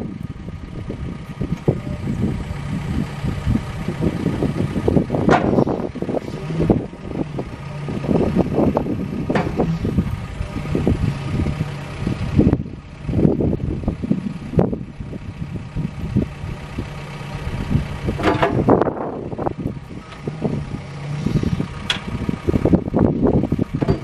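CAT 420F backhoe loader's diesel engine running while the backhoe boom, stick and bucket are moved hydraulically, with irregular louder swells and a few sharp knocks over the steady engine note.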